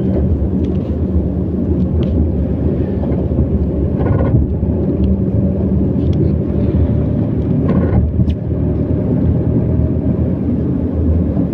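Steady road-travel noise from a moving vehicle: engine and road rumble with wind rumbling on the microphone, and two brief higher sounds about four and eight seconds in.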